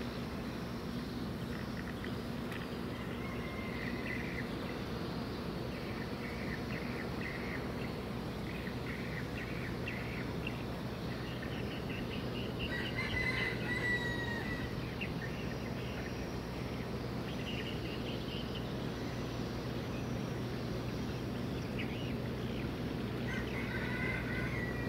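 Steady low drone of container ships passing close by, under birds calling in short bursts. A rooster crows once about halfway through, the loudest call.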